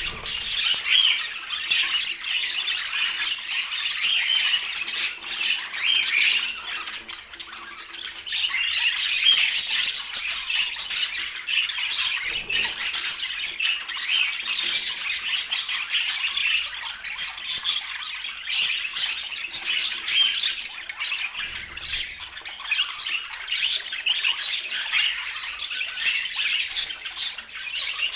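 Budgerigars chattering continuously, a dense stream of quick, sharp calls and warbles.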